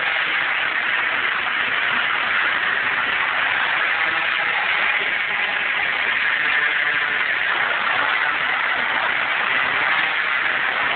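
Two-stroke MBK Nitro scooter engine, fitted with a Malossi MHR kit, running steadily as it laps an indoor kart track, its sound echoing through the hall.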